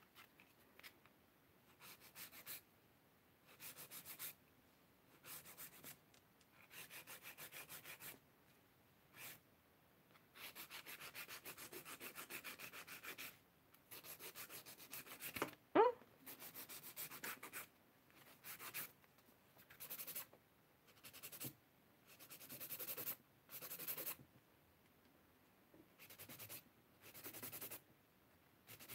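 Fairly faint hand nail file rasping back and forth across acrylic nails, in bursts of quick strokes with short pauses between them; the file is getting a bit blunt. One brief vocal sound about halfway through.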